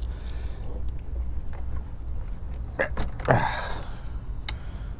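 Engine oil dipstick being pulled out and handled for an oil check: a few light clicks and knocks, with one brief scraping sound about three seconds in.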